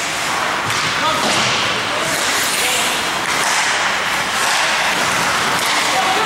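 Ice hockey game in an arena: indistinct spectator voices and shouts over a steady noisy din, with scrapes and slaps of skates and sticks on the ice.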